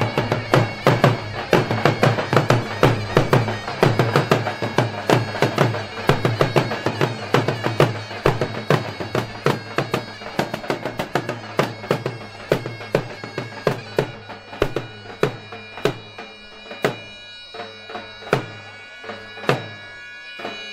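Davul and zurna wedding music: a loud double-reed zurna holds steady tones over a davul bass drum. The drum beats are dense at first, then thin out in the last third to single strokes about once a second.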